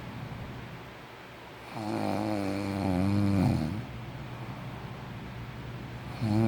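A sleeping person snoring. One snore lasting about two seconds, with a wavering pitch, starts nearly two seconds in, and the next begins near the end, with a quieter gap between.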